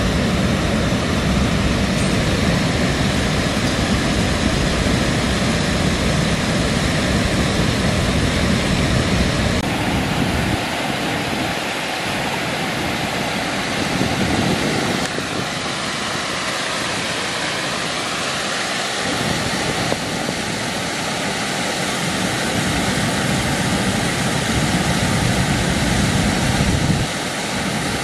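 Steady rushing of river water pouring over a low earthen bank in a small waterfall, with a deep rumble underneath that drops away for several seconds in the middle and again briefly near the end.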